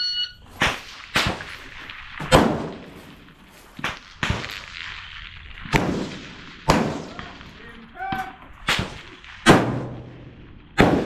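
A shot timer's beep at the very start, then a string of precision rifle shots, sharp cracks roughly a second apart, each with a short echo trailing off.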